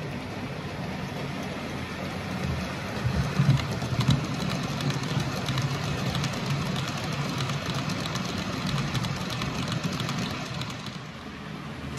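Model train of Ecofret intermodal container wagons running past on model railway track: a steady low hum, with rapid clicking of the wheels over the rail joints from about three seconds in until near the end.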